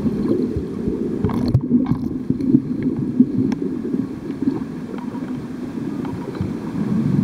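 Muffled water noise picked up by an underwater camera: a low, uneven rumble with scattered faint clicks.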